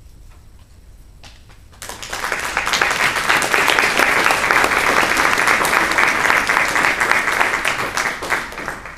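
Audience applauding, starting about two seconds in, swelling quickly, then dying away near the end.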